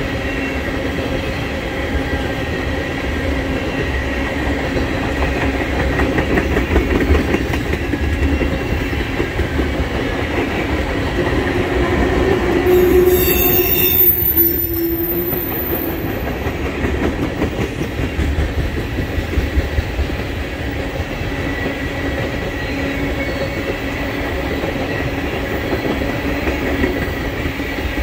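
Railroad tank cars of a freight oil train rolling past, a steady rumble and clatter of steel wheels on the rails. Thin, steady squealing tones from the wheels run under it, briefly louder about halfway through.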